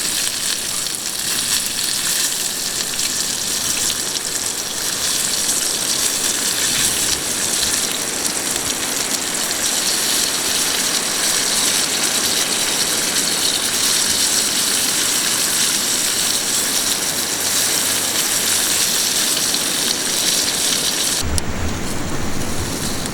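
Food sizzling and frying in a pan on a gas camping stove, a steady crackling hiss. Near the end the sizzle stops abruptly and a lower rumble takes over.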